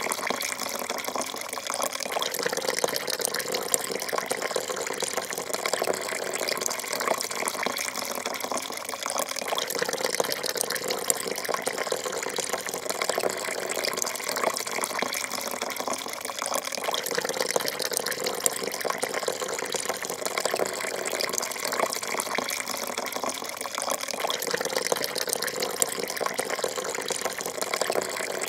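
Coffee poured in a thin, steady stream into a porcelain cup, a continuous splashing trickle that keeps on evenly without a break.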